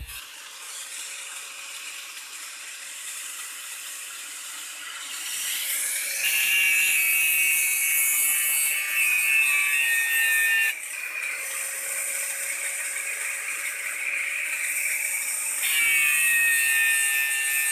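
Handheld electric angle grinder grinding the steel blade of a blunt sickle, a high whine with a hiss. It grows louder and shriller about six seconds in as the disc bites the metal, eases a little past the middle, and bites hard again near the end.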